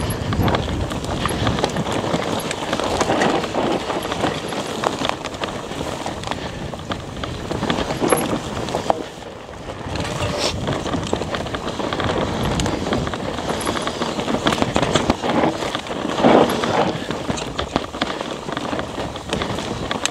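Rocky Mountain Altitude PowerPlay e-mountain bike descending dusty, loose singletrack: tyres on dirt with constant rattles and knocks from the bike over rough ground, easing briefly about nine seconds in.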